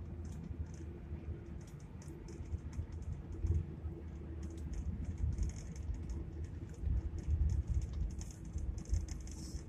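Low road and engine rumble heard inside a moving vehicle, with a faint steady hum and irregular light clicks and ticks scattered throughout.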